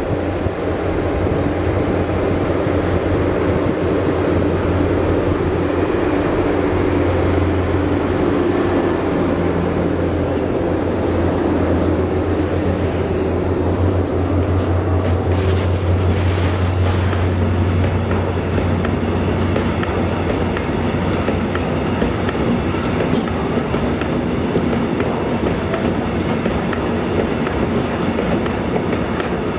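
Two BB 67000-series diesel locomotives with SEMT Pielstick V16 PA4 engines working at full power up a steep grade. A deep, steady engine drone weakens after about twenty seconds, while a long train of loaded steel-coil wagons rumbles and clatters past on the rails.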